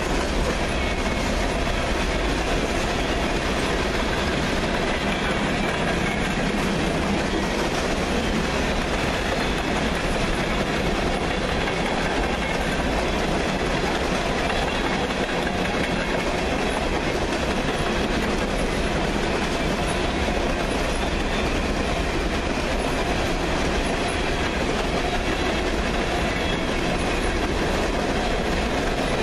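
Freight train of hopper cars rolling past steadily, a continuous sound of steel wheels on rail.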